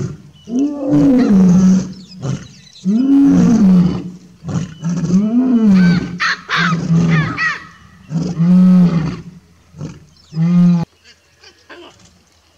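Baboons giving loud alarm barks at a lioness, a call every second or two, each rising and falling in pitch, with higher shrill calls mixed in around the middle. The calling stops about two seconds before the end.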